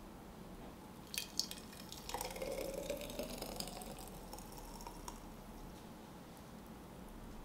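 Thick green smoothie poured from a blender jug into a glass jar. The pour starts about two seconds in and lasts about two seconds, after two light clicks about a second in.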